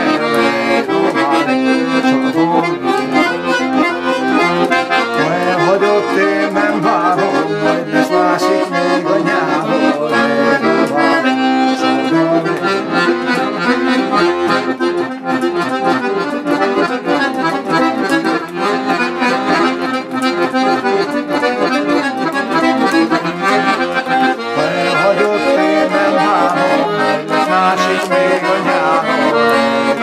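Piano accordion playing a tune: a melody on the treble keys over accompaniment on the bass buttons, loud and steady throughout.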